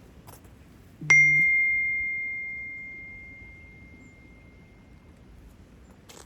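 A single bright ding about a second in, one clear ringing tone that fades away slowly over about four seconds.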